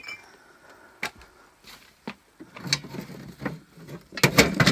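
Knocks and clinks of objects being handled while rummaging: a metal clink ringing out at the start, single sharp taps about a second apart, then a quick cluster of loud knocks and rattles near the end.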